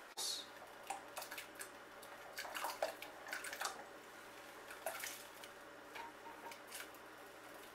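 Chopped onion, carrots and celery scraped off a wooden cutting board into a pot: faint, scattered scrapes and light taps, busiest about a third of the way in, over a faint steady hum.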